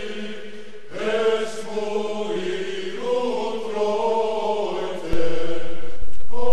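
A men's choir singing slow Orthodox chant in long held chords, growing suddenly louder about five seconds in.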